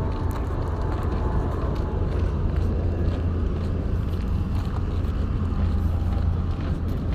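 Wind buffeting the phone's microphone: a steady low rumble that does not change.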